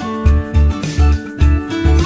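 Background music with a steady beat of about two low pulses a second under sustained melodic notes.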